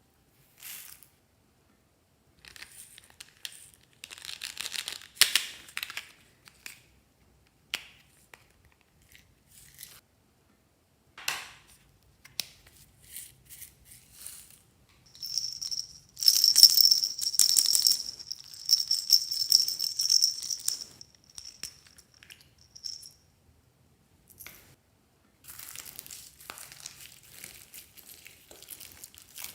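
Slime and mixed-in materials being handled by hand: irregular crinkling, crackling and squishing sounds in short bursts with quiet gaps. There is a louder stretch about halfway through with a high hissing whistle.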